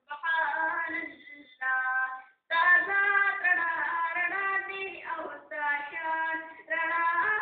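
A boy's solo voice singing a naat, a devotional Urdu/Pashto song in praise of the Prophet, in long melodic phrases with short breaths between them in the first few seconds.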